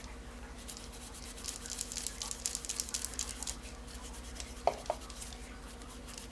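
An abrasive scuffing pad rubbed in quick back-and-forth strokes over a spinning reel's handle to smooth out scratches, followed by two light clicks about five seconds in.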